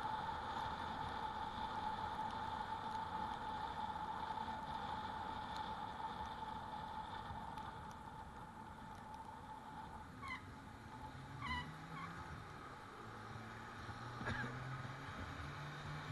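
Riding noise on an e-bike: a steady rush of tyre and wind noise with a steady whine that fades over the first half. In the second half a few short, falling bird calls sound over the low hum of a passing engine.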